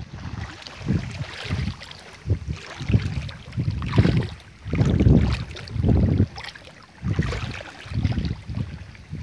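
Wind buffeting the microphone in uneven gusts, a low rumble that swells and drops about once a second, over a faint steady hiss.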